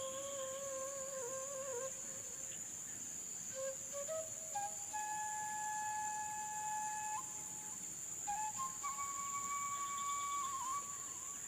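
Background music: a slow flute-like melody of long held notes that step up and down. Under it runs a steady high-pitched insect drone.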